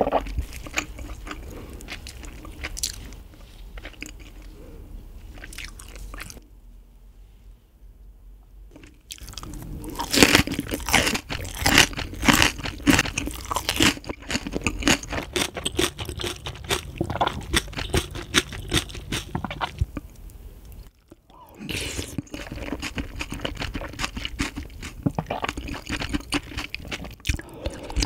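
Close-miked wet crunching and chewing of fresh green onion kimchi with rice in ice water. It eases off for a few seconds about six seconds in, then comes back at its loudest and densest from about ten seconds, with a brief pause a little after twenty seconds.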